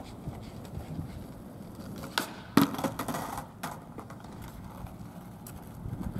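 Skateboard wheels rolling on asphalt, with a few sharp clacks of the board against the ground a little over two to nearly four seconds in, the loudest about halfway through.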